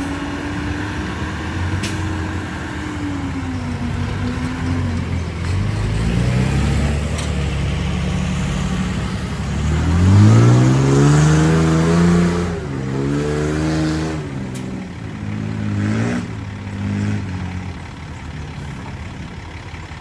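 Diesel engine of a small earthmoving machine working, running fairly steady at first, then revving up hard about halfway through and rising and falling in pitch several times after.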